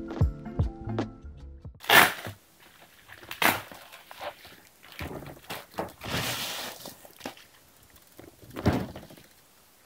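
Background music that stops about two seconds in, followed by handling of a bubble-wrapped package: a few sharp taps and knocks, a stretch of plastic and bubble-wrap crinkling, and a knock as the boxes are set down on a desk near the end.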